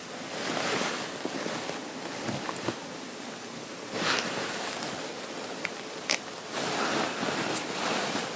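Fabric rustling and brushing as a garment is handled, in several swells, with a few small sharp clicks in between.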